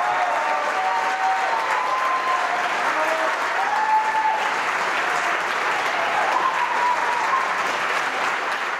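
Audience applauding steadily, with voices calling out cheers over the clapping.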